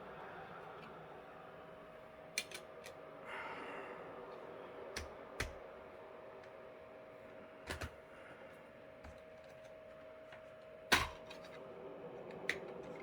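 Scattered clicks and clacks of a PlayStation 2's disc tray and a game disc being handled during a disc swap, the loudest click about eleven seconds in, over a faint steady hum.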